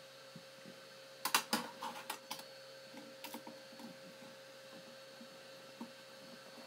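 Light metallic clicks and rattles of a wire fan guard and small screws being fitted against a steel power-supply case with a screwdriver, in a short cluster about a second and a half in and a few scattered ticks after. A faint steady hum runs underneath.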